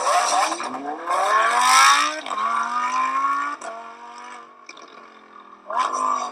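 Supercar engine accelerating hard through the gears: the pitch climbs, drops sharply at a shift about two seconds in, climbs again and drops at another shift a second later. A fresh loud surge comes near the end.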